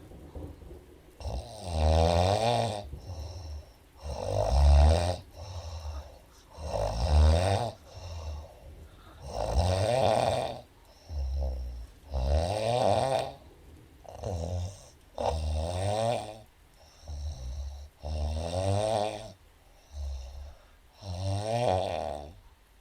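A woman snoring in sleep: a long, buzzing snore roughly every two and a half seconds, each followed by a shorter, softer one.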